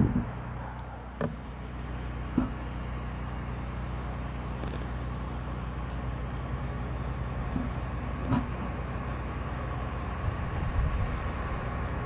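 Approaching CSX freight train's diesel locomotives: a steady low rumble that grows a little louder toward the end, with a few sharp clicks.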